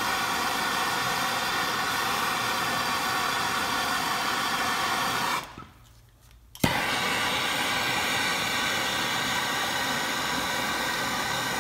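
Handheld gas torch burning with a steady hiss. It cuts out about five and a half seconds in. After about a second of quiet, a sharp igniter click relights it and the hiss resumes.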